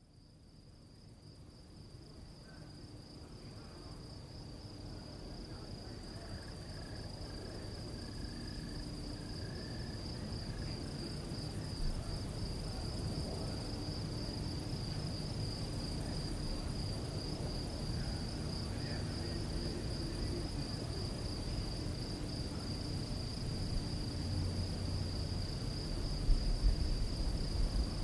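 Crickets singing in a steady, shrill chorus that fades in over the first several seconds. A low rumble runs underneath, with a few low thumps near the end.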